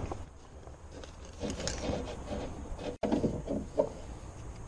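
Light, irregular knocks and rubbing from a socket tool and hands working on the window regulator bolts inside a car door's inner metal panel. There are two clusters of small clatters, the second just after a brief break about three seconds in.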